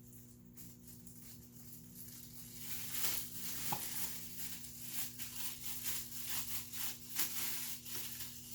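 Irregular rustling and scraping of parts being handled, starting about two and a half seconds in and running on in quick uneven strokes, with one sharp click shortly after.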